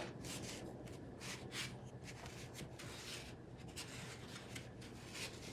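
Faint rubbing and scraping of hands working small glued workpieces: a series of short scratchy strokes over a low steady hum.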